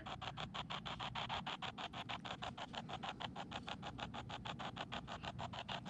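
Spirit box app sweeping through radio stations: a steady train of chopped bursts of static, about seven a second.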